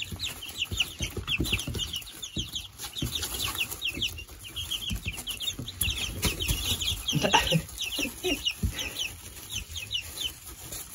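A brood of young chicks peeping non-stop: many short, falling, high-pitched cheeps overlapping, a few louder than the rest, over soft rustling and light thumps in the wood shavings.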